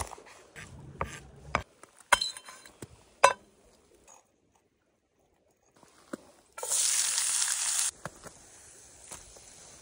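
Chef's knife chopping a green pepper on a wooden board: a run of sharp knocks. After a short pause, chopped green peppers sizzle loudly in hot fat in a small aluminium pan for about a second, then settle to a quieter sizzle.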